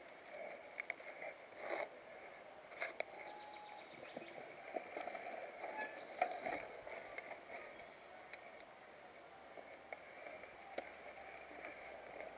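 Mountain bike ridden down a rocky dirt trail, with scattered clicks and rattles from the bike over rocks and roots over a steady faint rush.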